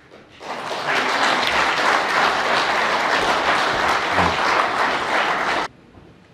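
Audience applauding, swelling up about half a second in and cutting off suddenly near the end.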